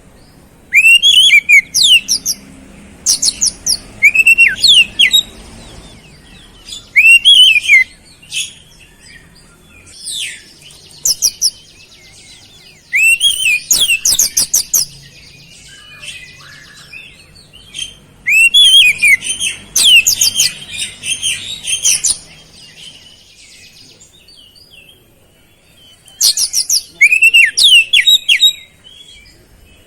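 Oriental magpie-robin (kacer) singing loudly in repeated bouts of rapid, high sweeping and trilled notes with short pauses between. Its song is laced with mimicked flowerpecker calls.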